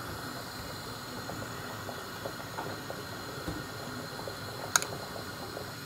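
Steady hiss of room noise with small scattered clicks of a spoon at a bowl as tamarind sauce is spooned onto the chotpoti, and one sharper tap about five seconds in.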